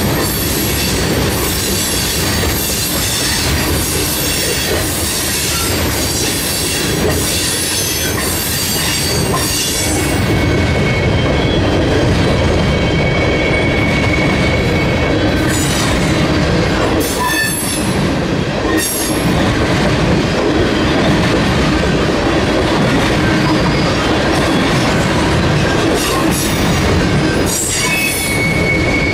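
Freight train of tank cars and hoppers rolling past close by: a steady loud rumble of steel wheels on rail with clicking over the joints. Thin high wheel squeals come in about a third of the way through and again near the end.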